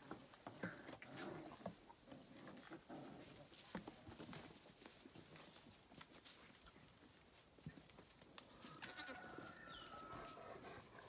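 Faint rustling and small clicks in straw bedding as lambs and dogs move about, with faint bleating from Zwartbles lambs.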